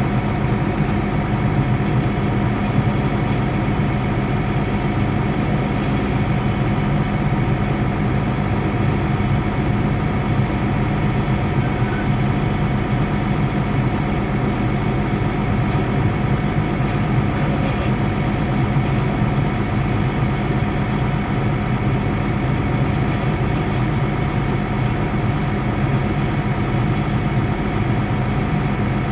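Caterpillar D6 bulldozer's diesel engine idling steadily, heard from inside its cab, with no changes in pitch or load.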